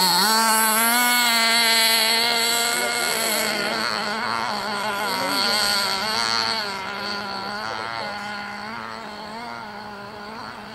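Novarossi .46 two-stroke nitro glow engine of a radio-controlled speedboat running at full throttle, a high steady whine. Its pitch dips sharply as the boat is dropped onto the water and loads up, then holds steady while the sound fades as the boat races away on its speed run.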